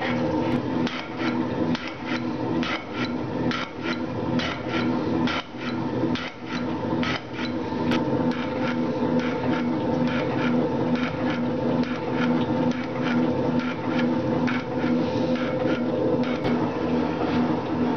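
Metal shaper running and cutting a keyway slot inside a bore, its ram stroking back and forth with an old drill bit as the cutting tool: a steady machine hum with a regular clack about twice a second.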